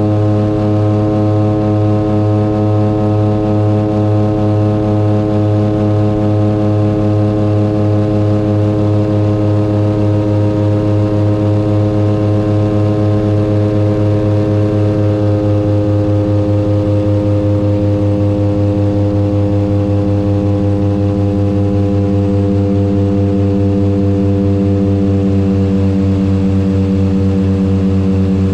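Turboprop aircraft engines and propellers droning steadily on final approach. The drone is a deep hum with a fast, even pulsing throb running through it.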